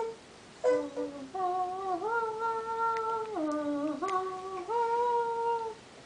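A person humming a slow tune in long held notes that step up and down in pitch, stopping shortly before the end.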